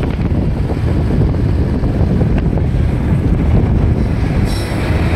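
Wind buffeting the microphone on a moving motorbike, a loud, steady rushing roar with road noise beneath it.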